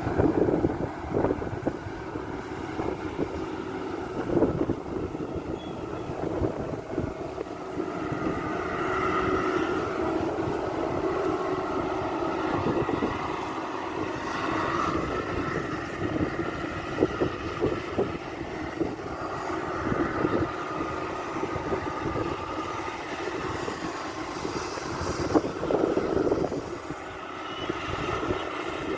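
Maxxi Bimo 102 rice combine harvester running steadily, its engine and machinery making a continuous drone, with irregular gusts of wind on the microphone.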